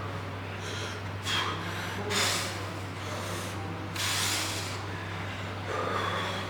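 Three short, forceful breathy exhales, about a second in, near two seconds and at four seconds, as from someone straining through a weightlifting set. Under them runs a steady low hum.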